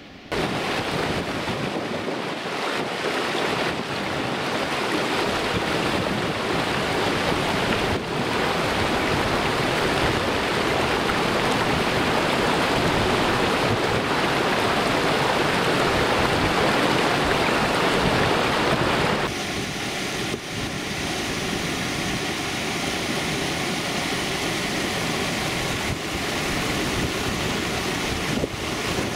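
Mountain stream rushing over rocks in a loud, steady, even wash of water noise that drops a little about two-thirds of the way through.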